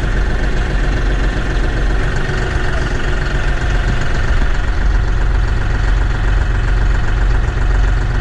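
Compact tractor engine running steadily, loud and unbroken.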